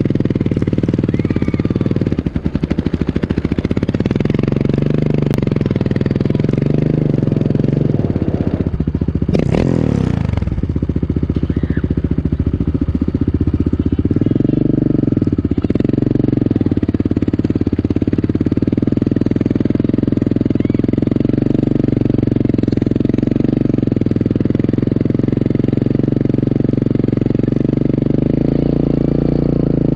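Engine of the vehicle towing the sled, running steadily close to the microphone. Its pitch drops sharply about ten seconds in and swells again around fifteen seconds.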